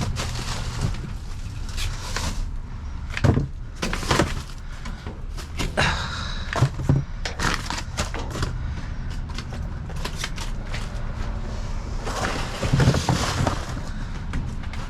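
Rummaging through a dumpster: irregular knocks, clatters and rustles of things being moved and picked out, with the loudest clatters about three, six and twelve seconds in, over a steady low rumble.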